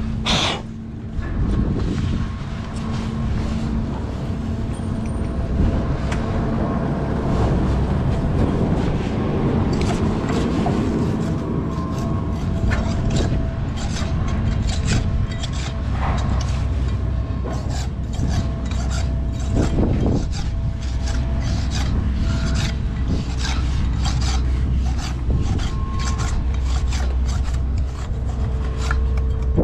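Hand brush scrubbing excess mortar off the freshly pointed joints of a brick soldier-course arch, in many quick strokes that come thicker from about ten seconds in.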